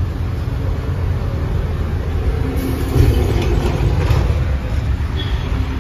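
Low, steady rumble of a vehicle engine running, growing a little louder about three seconds in.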